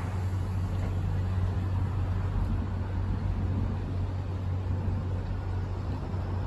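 Diesel locomotive of an approaching passenger train, a steady low rumble with no horn.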